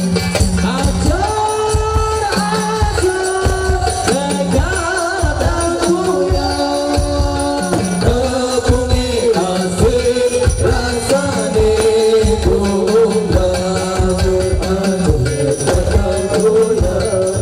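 Sholawat, an Islamic devotional song, sung by a lead singer through a PA microphone over a steady hand-drum and jingle-percussion beat.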